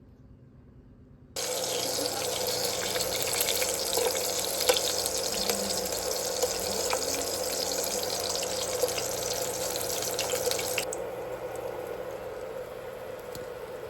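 A water tap turned on about a second in, running hard into a sink with small splashes; about three seconds before the end the flow turns softer and duller.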